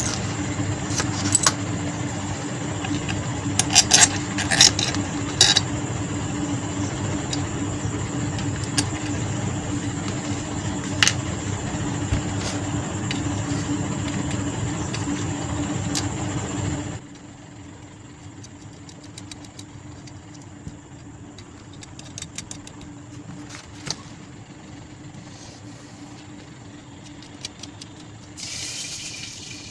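A steady loud hum with a hiss that cuts off suddenly a little over halfway through. Over and after it come clicks and clinks of small metal parts as a stand fan motor's housing and end plate are handled.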